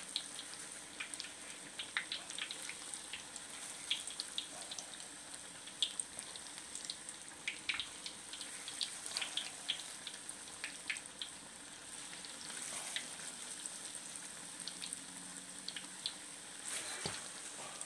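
Battered banana pieces deep-frying in hot oil in a wok: a steady sizzle with frequent, irregular sharp crackles and pops.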